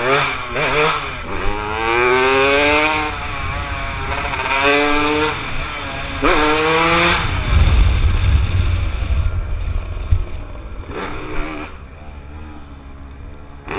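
An engine revving several times, its pitch climbing and falling with each rev, with a heavy low rumble through the middle; it settles quieter near the end.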